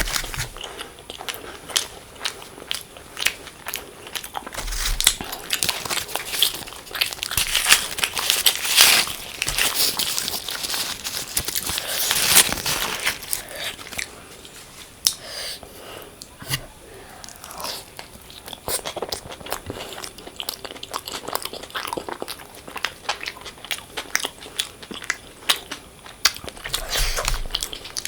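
A person eating close to the microphone: biting and chewing with many small crunchy, wet clicks. It is busiest for a few seconds in the middle.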